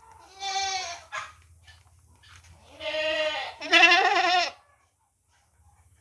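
Goat bleating: one bleat about half a second in, then two longer bleats back to back near the middle, the second the loudest with a wavering, quavering pitch.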